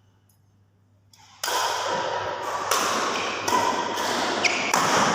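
Near silence for about a second and a half, then a sudden loud, noisy din with repeated sharp thuds and taps.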